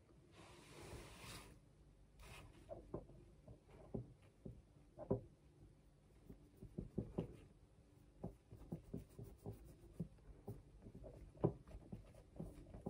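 Faint rubbing of a fingertip over a lip gloss swatch on the back of a hand, with a soft hiss in the first second or so and small scattered clicks and taps throughout.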